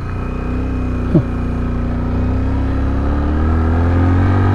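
Motorcycle engine running at speed, its pitch and loudness rising slowly as it accelerates. A brief rising chirp comes about a second in.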